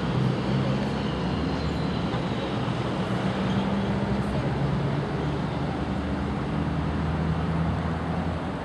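Steady road traffic noise, with the low hum of passing vehicle engines swelling and fading a few times.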